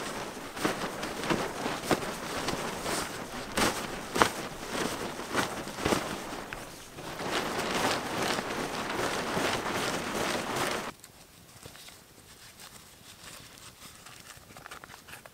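A camouflage tarp being shaken out and flapped by hand: steady, rough rustling of the fabric with repeated sharp snaps. It cuts off suddenly about eleven seconds in, leaving the faint crackle of a small campfire.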